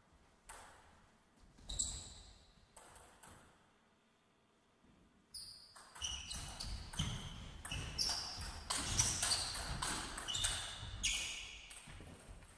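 Table tennis ball clicking off bats and the table. A few separate bounces come in the first seconds, then a fast rally from about five seconds in, several sharp ringing clicks a second, until the point ends about eleven seconds in.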